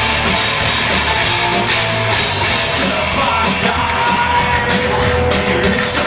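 Live rock band playing loud with distorted electric guitars, bass and drums.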